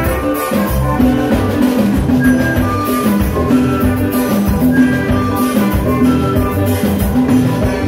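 Live band playing an upbeat Caribbean tune, with saxophone and flute over bass guitar, keyboard and drum kit.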